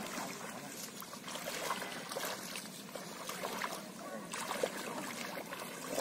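Shallow pond water sloshing and lightly splashing as men wade through it and drag a bunched fishing net along, with many small scattered splashes.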